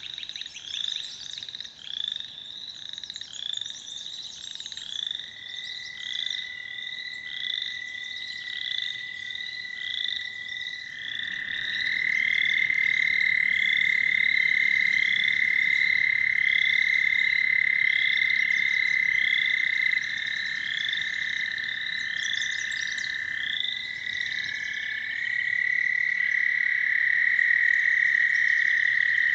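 American toads trilling: a long, steady, high musical trill starts about five seconds in and grows louder, and a second toad joins it with an overlapping trill near the end. Behind it, a higher short call repeats about twice a second from another frog in the pond chorus.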